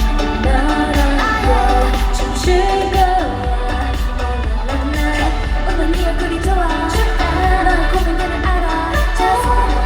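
K-pop girl group singing live over a pop backing track with a strong, pulsing bass beat, heard loud through concert hall speakers.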